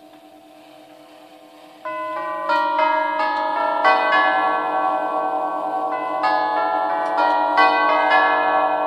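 Herschede nine-tube grandfather clock's chime tubes playing the half-hour chime: struck notes one after another, each ringing on and overlapping the next. The chime starts about two seconds in, set off by the minute hand reaching the half hour, after a faint ring left over from earlier notes.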